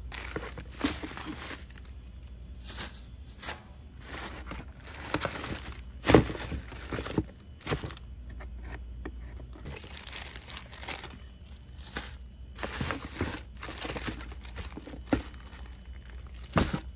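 Clear plastic bags of seed potatoes and onion sets crinkling and rustling in irregular bursts as they are handled in a cardboard box, with a sharp knock about six seconds in and another near the end, over a low steady hum.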